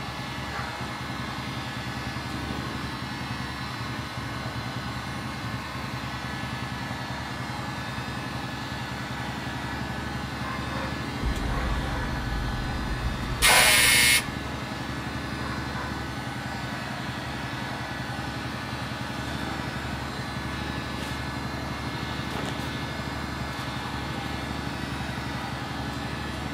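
Harbor Freight electric heat gun running, its fan motor giving a steady hum. Just after halfway there is one loud burst of hiss-like noise, lasting under a second.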